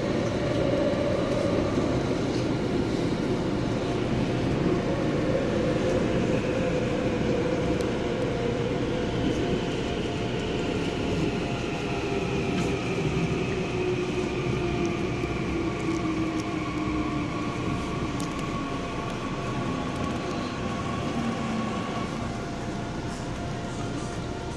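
Seoul Subway Line 9 electric train running, with a steady rumble and a motor whine that slowly falls in pitch as the train slows on its approach to the next station.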